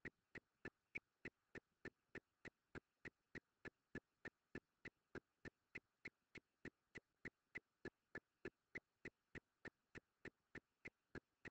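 Faint, perfectly regular ticking, a little over three clicks a second, with nothing else heard between the ticks.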